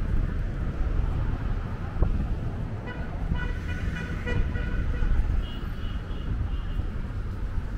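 City street traffic rumbling steadily, with a short run of high tooting tones, like a car horn, about three to four and a half seconds in and a fainter one near six seconds.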